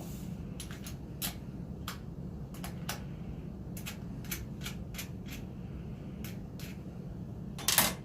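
Scattered light clicks and taps of parts and tools being handled while taking apart a small engine's air filter assembly, with a louder clatter near the end, over a steady low hum.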